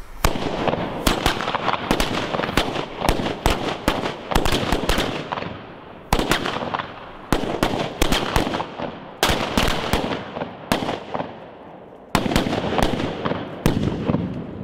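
Firecracker mat going off: rapid strings of sharp bangs over a continuous crackle, coming in several volleys that each start with a burst of loud reports and thin out before the next.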